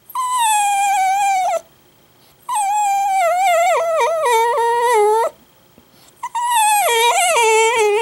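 Italian greyhound crying loudly: three long, high, wavering whine-howls, each sliding down in pitch, with short pauses between them.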